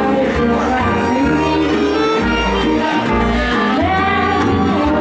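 A live band playing a song: steady bass notes under a lead melody that slides and bends in pitch.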